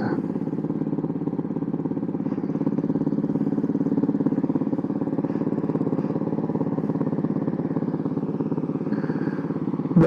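Honda CB400SS single-cylinder four-stroke engine idling steadily, an even run of pulses with no revving.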